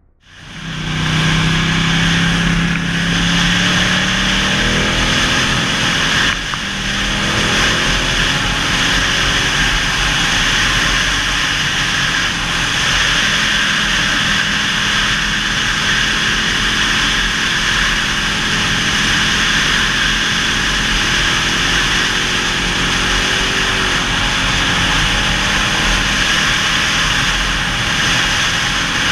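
Ducati 1199 Panigale S's V-twin engine running at road speed under heavy, steady wind rush on the camera's microphone. The engine note rises over the first couple of seconds as the bike pulls away, with a brief dip about six seconds in.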